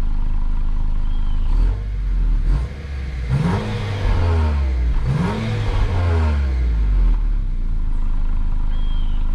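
Honda Accord 2.0T turbocharged four-cylinder with a PRL catless downpipe, idling, then revved twice in quick blips about three and five seconds in, each rising and falling back to idle.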